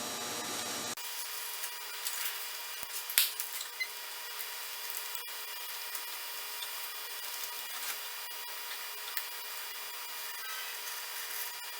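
Knife blade cutting and scraping along the edge of a plastic sheet, run against a metal plate as a guide: faint scattered scratching with a few sharper clicks two to three seconds in.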